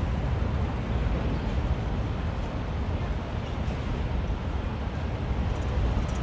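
Steady low rumble of city traffic with no break or single event standing out.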